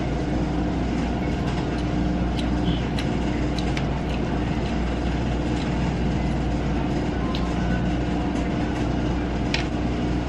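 Steady machine hum: a constant low rumble with a held mid tone, and a few light clicks and taps over it.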